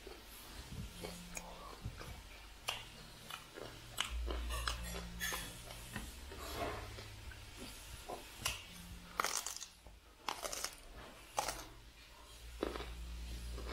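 Raw broccoli florets being bitten off and chewed close to the microphone: irregular sharp crunches, several a second at times, with a low hum coming and going underneath.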